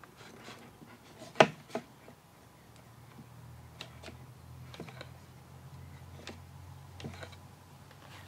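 Quick-grip bar clamps being squeezed and set against a wooden block: a few sharp clicks and knocks, the loudest about a second and a half in, then scattered lighter clicks. A faint low hum comes in partway through.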